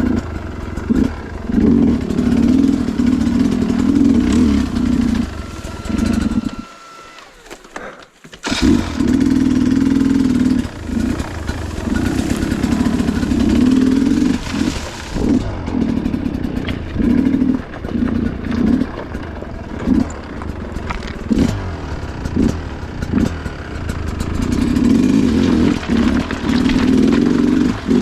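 Sherco two-stroke enduro dirt bike engine revving in repeated bursts on and off the throttle. About a quarter of the way in the engine sound nearly drops away for a couple of seconds, then comes back hard.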